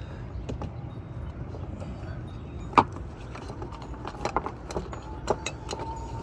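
Scattered metallic clicks and rattles from hands working on a camper door lock that has come loose, with one sharp click a little under three seconds in and a run of clicks about four to five seconds in. A steady low rumble runs underneath.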